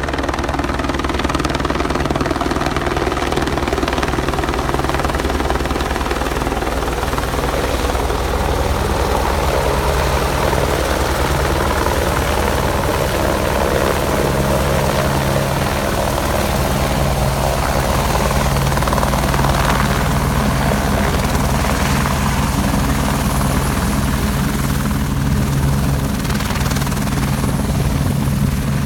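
Rescue helicopter running close by, its rotor beating steadily and loudly with a steady engine tone underneath.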